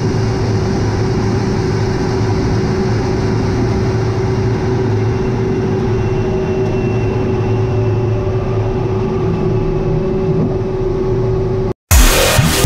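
A-10 Thunderbolt II's twin TF34 turbofan engines running steadily, heard from the cockpit on the ground roll along the runway, with a constant droning tone over the jet noise. The engine sound cuts off suddenly near the end, and loud electronic dance music starts.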